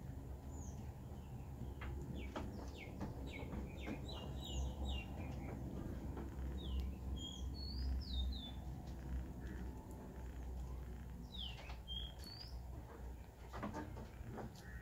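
Small birds chirping: short, falling chirps in scattered bunches, over a steady low rumble.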